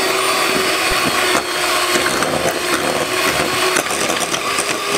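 Electric hand mixer running steadily, its beaters whisking runny pancake batter in a glass bowl.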